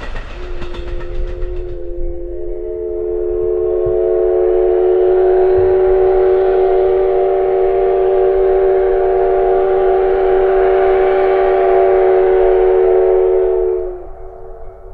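D51 steam locomotive's whistle blown in one long blast, several tones sounding together with a hiss of steam. It starts softly, grows fuller about two seconds in, holds steady for about twelve seconds and cuts off sharply near the end.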